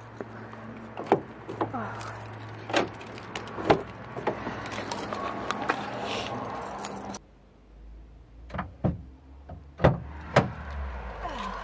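Car keys jangling with sharp clicks and knocks as a car door is opened and a camera is handled and set down inside the car. The steady background hum drops away about seven seconds in, followed by a few louder knocks.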